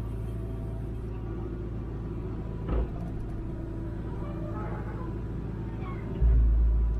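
Diesel engine of a Hitachi Zaxis 210W wheeled excavator running steadily, heard from inside the cab. There is a single knock about three seconds in, and a louder low rumble comes in near the end.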